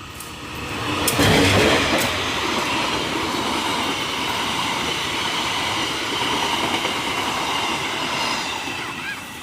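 A train passing close by: a loud rumble of wheels on rail that builds about a second in, with a couple of sharp clacks, and steady high ringing tones over the noise. It fades away near the end.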